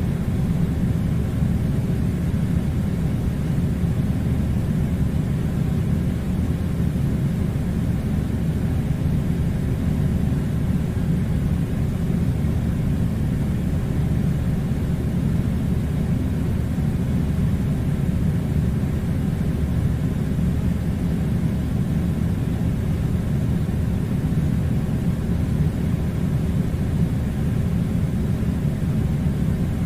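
Air conditioner running: a steady low rumble of blowing air that does not change.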